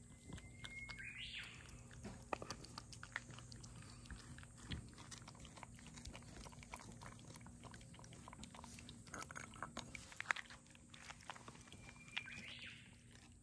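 A cat lapping cat milk from a bowl: a run of quick, small wet licking ticks. Twice, about a second in and near the end, a short high chirp cuts through.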